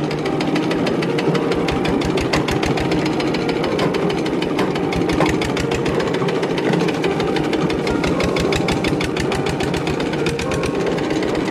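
Andoria S301D single-cylinder diesel engine running with a steady, fast, even knock, just started after standing unused for five years.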